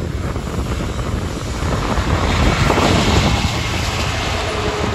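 Class 66 diesel-electric locomotive, its two-stroke V12 engine running as it approaches and passes close by at the head of a freight train, growing louder to a peak about three seconds in.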